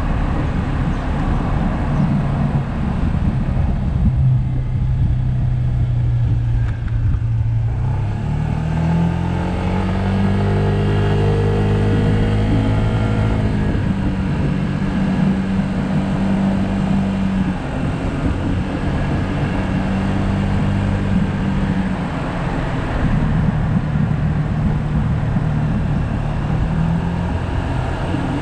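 2020 Yamaha SMax scooter's 155 cc single-cylinder engine running under way, over a heavy rush of wind noise. The engine note climbs as the scooter speeds up about eight seconds in, holds steady, then eases off and picks up again near the end.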